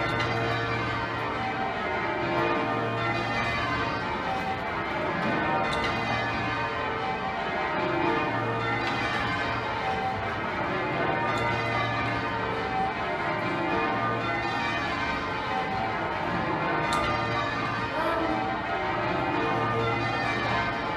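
Change ringing on Exeter Cathedral's ring of twelve church bells, tenor about 72 cwt: the bells strike one after another in a rapidly changing order. The deep hum of the heavy tenor comes in every few seconds under the higher bells.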